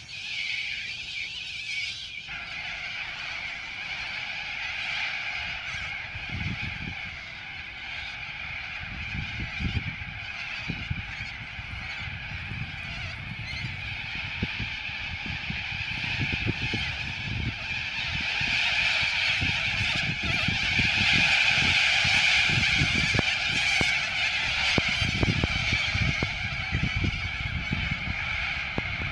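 A flock of cockatoos screeching continuously, the calls growing louder about two-thirds of the way through.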